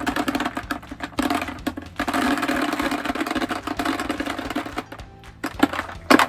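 Plastic bio balls from a trickle filter clattering into an empty plastic bucket as they are shaken out of the filter sleeve: a dense rattle of many small knocks, with a couple of louder knocks near the end.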